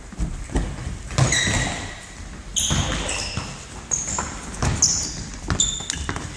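Indoor football on a wooden gym floor: shoes squeaking sharply on the boards several times, among thuds of the ball being kicked and bouncing and running footsteps, echoing in the large hall.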